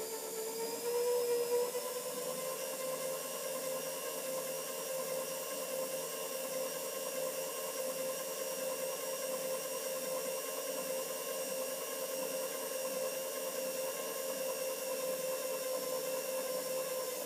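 Electric table power feed on a mill/drill running steadily, a motor whine that rises slightly in pitch about a second in and winds down near the end as the table traverse stops.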